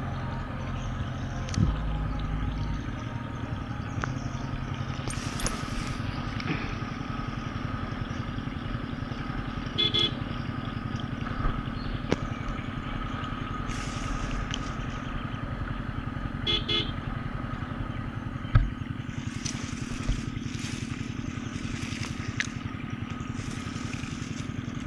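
Bajaj Pulsar 220F's single-cylinder engine running steadily at low road speed. Its horn gives two short beeps, about ten seconds in and again about seventeen seconds in.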